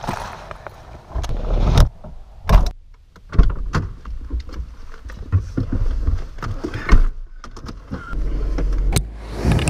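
A bag is handled and loaded into a car's boot, then come several thumps of the boot lid and the driver's door shutting. Near the end the car's engine starts and runs with a steady low rumble.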